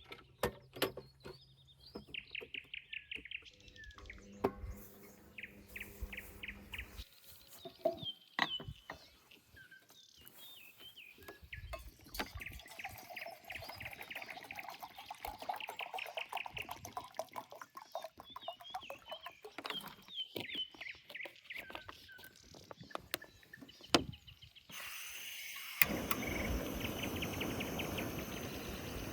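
Songbirds singing in repeated rapid trills, with scattered small clicks and knocks. About 25 seconds in, this gives way abruptly to a steady rushing noise.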